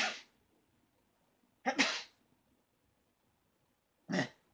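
Three short fake sneezes, each a quick burst, about two seconds apart: a man's voice imitating a small, toned-down girl's sneeze.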